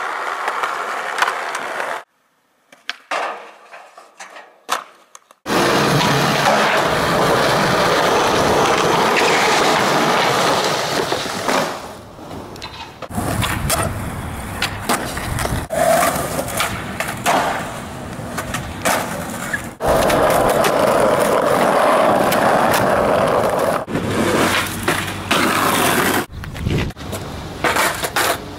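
Skateboard on Better Skateboarding wheels rolling over concrete, with sharp clacks of tricks being popped and landed and trucks grinding on concrete curb edges, across several separate takes. About two seconds in it drops to near quiet for a few seconds, with only scattered clicks.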